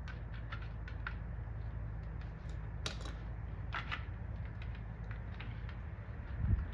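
Scattered light clicks and taps of snap-on light-socket clips being pressed down onto the wire, two of them louder about three and four seconds in, over a steady low hum, with a dull thump near the end.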